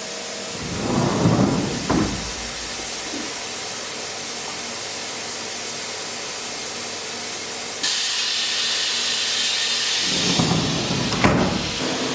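Haas Super Mini Mill machining a plastic sheet held on a vacuum bed: a steady hiss, with heavier swells about a second in. A louder, sharper hiss comes on suddenly about eight seconds in and stops shortly before the end with a click.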